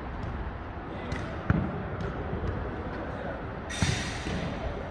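Jokgu ball impacts during play, kicked and bouncing on the court: a sharp thud about a second and a half in and a second, brighter smack near four seconds, over steady background noise.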